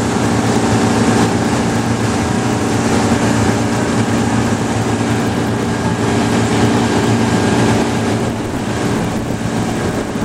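A boat's motor running steadily at cruising speed, a low hum with a haze of wind and water noise, easing slightly near the end.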